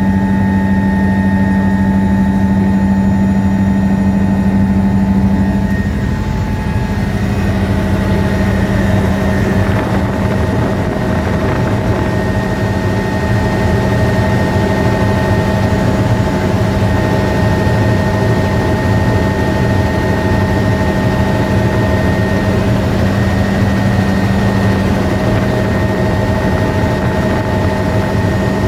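Helicopter running in flight: a steady engine and rotor drone with constant whining tones, dipping briefly about six seconds in.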